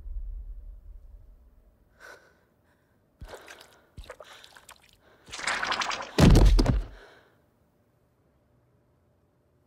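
A woman gasping and breathing shakily: a few short gasps, then a louder, longer gasp about six seconds in. A low rumble dies away at the start.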